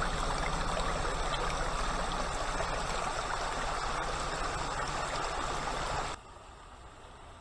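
Shallow rivulets of water running and splashing over stones and leaf litter down a slope, steady. Cuts off suddenly about six seconds in, leaving only a faint background.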